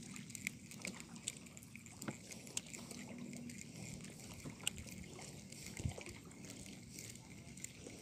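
Faint water lapping and sloshing against the shore, with scattered small sharp clicks and ticks.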